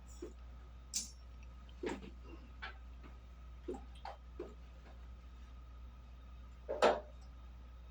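A few scattered light clicks and knocks, the loudest near the end, over a steady low hum.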